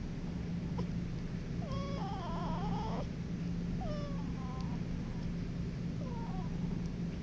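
A sleeping young animal's little snore: short squeaky, wavering whistles on its breaths, one every one to two seconds, the longest about two seconds in, over a steady low hum.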